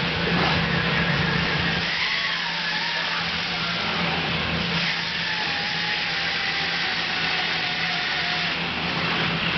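Steady mechanical hum with a faint, wavering whine above it.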